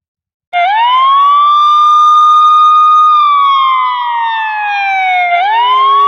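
A siren wailing. It winds up to a high pitch about half a second in, holds, slowly falls over about two seconds, then winds up again near the end.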